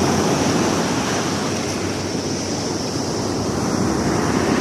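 Sea waves washing up the beach in a steady wash of surf, with wind on the microphone. The surf swells slightly near the start and again near the end.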